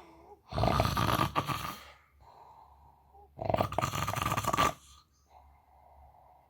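A sleeping person snoring: two loud snores about three seconds apart, each a little over a second long, with softer breaths out between them.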